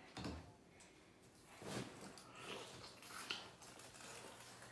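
Faint eating noises: a person biting, chewing and sucking at boiled crawfish held in the fingers, with a few short wet smacks and clicks.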